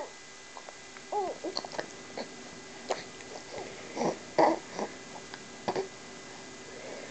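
Baby cooing, with several short soft vocal sounds scattered through and a couple of sharp brief catches in between.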